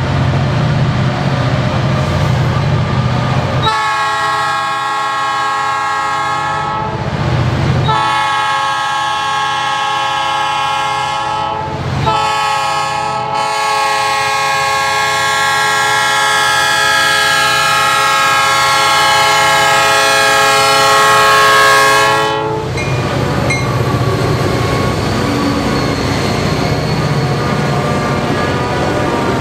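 Diesel freight locomotives running under load up a steep grade, a low engine rumble, and over it the lead locomotive's multi-chime air horn blowing three blasts. The first two are shorter and the last is held for about ten seconds before it cuts off, leaving the engines rumbling on.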